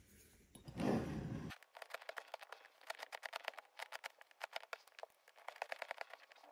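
Linocut gouge cutting into a linoleum block: a quick run of short, scratchy carving strokes, several a second, as small chips are pared away. A brief handling bump about a second in, just before the carving starts.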